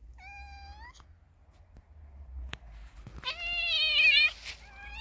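Female calico cat yowling while being mated, held by the neck by a tabby tom. There are three drawn-out cries: a short one at the start that rises at its end, a longer and loudest one about three seconds in with a wavering pitch, and a brief one near the end.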